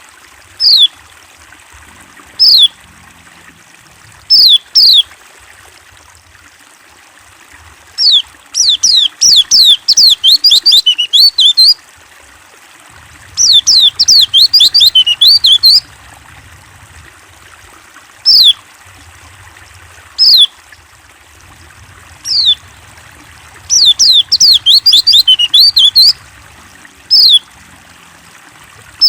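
White-eye (pleci) calling: single sharp, high notes that slide down in pitch, one every second or two, broken by three bursts of rapid twittering made of the same falling notes. A steady hiss of running water lies beneath.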